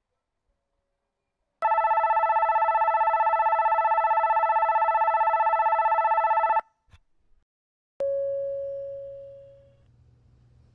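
Station platform departure bell ringing steadily with a rapid flutter for about five seconds, then cutting off. After a short pause comes a single chime that fades out over about two seconds.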